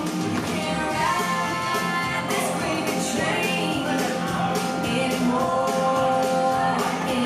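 A country song: a singer holding long notes over a band with a steady drum beat.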